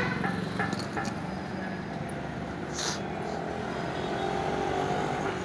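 Steady running noise of a motor vehicle, with a short hiss about three seconds in.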